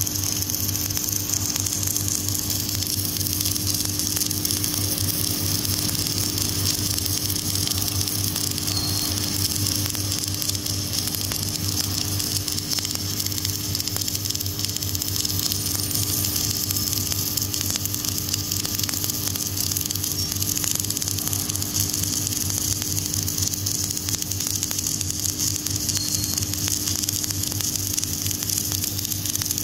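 Submerged arc welding on stainless steel, the arc buried under granular flux: a steady crackling hiss with a constant hum beneath it from the welding machine.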